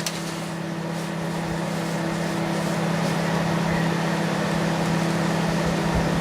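Microwave oven running: a steady electrical hum under a broad hiss, growing slowly louder.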